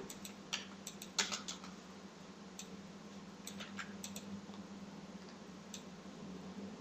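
Scattered clicks of computer keyboard keys, single and in small quick clusters, over a faint steady low hum.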